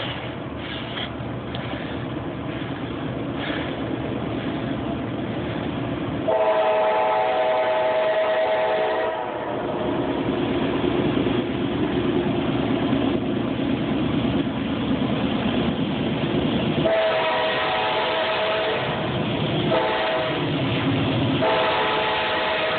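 CSX coal train's diesel locomotives approaching with a rumble that grows louder. A K5LA air horn sounds a long chord blast about six seconds in, then long, short and long blasts from about seventeen seconds on.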